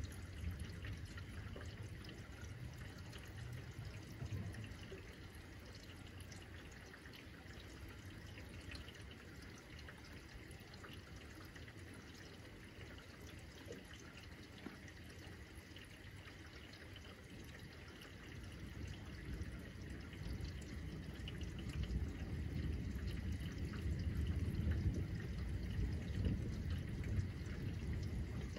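Steady rain falling, with drips pattering close by. A low rumble of thunder grows louder about two-thirds of the way in and keeps rolling.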